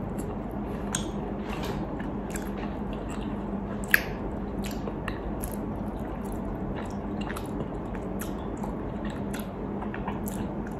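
Close mouth sounds of someone chewing a soft, chewy matcha mochi: scattered small wet clicks, one a little sharper about four seconds in, over a steady low hum.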